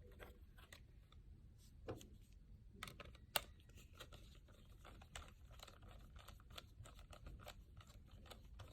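Faint, scattered clicks and small knocks of parts being handled as a Dell Inspiron 24 all-in-one computer is reassembled, with one sharper click about three and a half seconds in.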